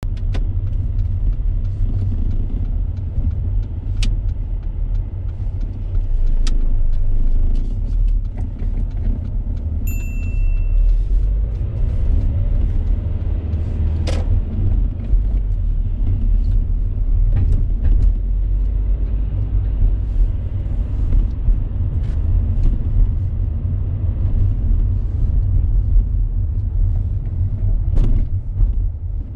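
Car being driven, heard from inside the cabin: steady low engine and road rumble, with a few sharp clicks and a short high beep about ten seconds in.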